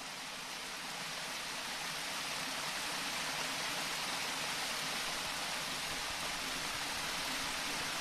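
Steady rushing of a stream's running water, swelling up over the first few seconds and then holding.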